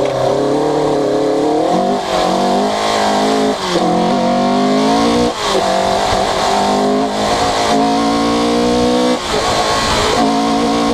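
Opel Kadett C Coupé rally car's engine under hard acceleration, its pitch climbing and then dropping back at each of several quick gear changes.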